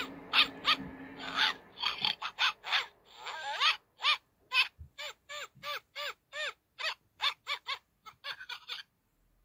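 Oriental kitten mewing in a long run of short, high calls, each rising and falling in pitch, at first crowded together and then coming about two to three a second until they stop near the end.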